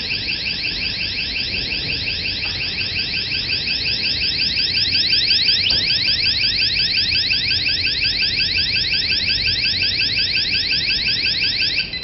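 Wireless magnetic door/window alarm sensor sounding its siren, set off by the door opening: a loud electronic whoop rising in pitch over and over, several times a second, without a break.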